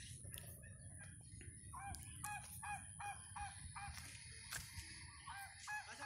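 Farmyard fowl calling in a run of short, repeated calls, about three a second, starting about two seconds in, over a low rumble.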